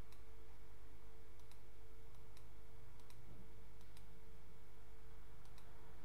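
Computer mouse clicking about ten times, several in quick pairs, while a numeric field is stepped up and down, over a steady low hum.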